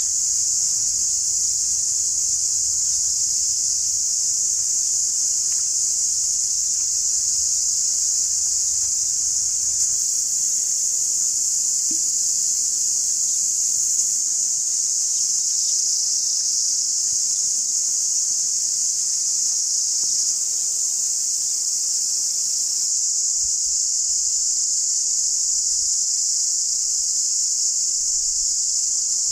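Forest insects chirping in one steady, high-pitched chorus that never lets up.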